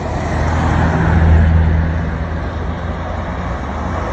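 A motor vehicle engine running close by, a steady low hum that swells about a second in and then eases, over street noise.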